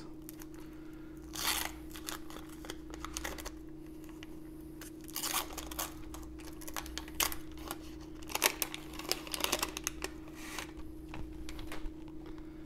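Wax-paper wrapper of a 1990 Donruss baseball card pack being torn open and crinkled, in several short bursts of tearing and rustling.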